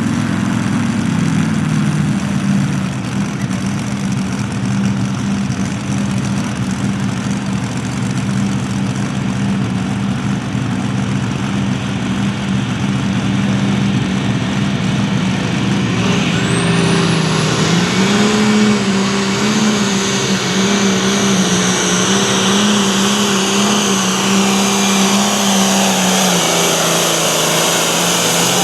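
Turbocharged diesel farm tractor engine running hard at a steady high pitch under the load of a pull. About halfway through a high whine rises in and holds over the engine, and the engine note drops near the end.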